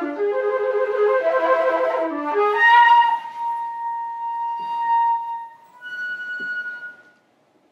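Solo concert flute playing contemporary music: a quick run of notes climbing in pitch, then a long held high note. After a short break comes one higher note, which ends shortly before the end.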